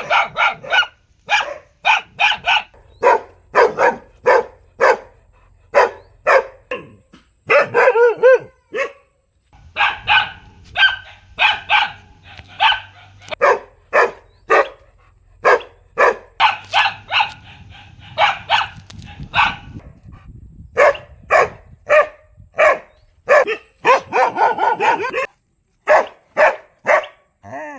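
A dog barking loudly over and over, in quick runs of roughly two barks a second with a few short pauses.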